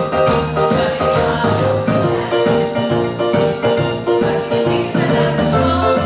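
Upbeat recorded song with singing over a steady beat of about three beats a second.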